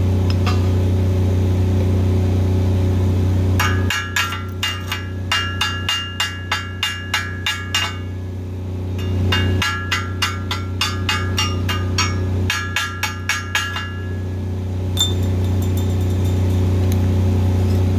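Hammer rapping on a steel column at about three blows a second, each blow ringing. The blows come in two runs with a short pause between, typical of chipping slag off a flux-cored weld. Under them a diesel welder-generator engine runs steadily.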